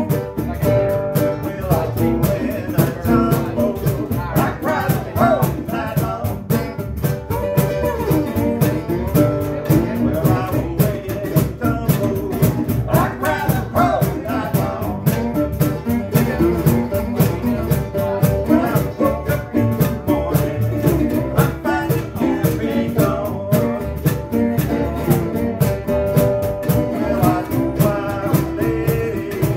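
A small acoustic band playing live: upright bass, cajon and guitars together, with a steady rhythm and a melody line moving over it.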